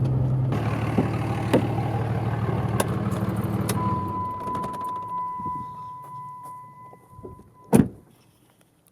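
A truck's engine runs steadily, then dies away about four seconds in, with keys and small clicks jangling. A steady warning tone sounds for a few seconds. A single loud thump, like the door shutting, comes near the end.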